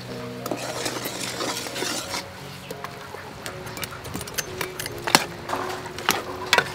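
Raw chicken pieces tipped into an aluminium pot of curry broth and stirred with a metal ladle, with a few sharp clinks of the ladle against the pot, the loudest about five seconds in. Faint steady tones that change pitch in steps run underneath.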